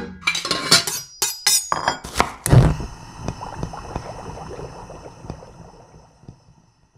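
Title-sequence sting: a quick run of sharp clinking, knocking hits. About two and a half seconds in comes a last, strongest hit that rings on and fades away over about four seconds.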